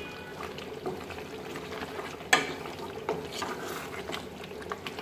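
Wooden spatula stirring chunks of beef kosha through thick bubbling gravy in a metal pot, with small wet squelches and ticks as the meat is turned. One sharp knock stands out a little past two seconds in.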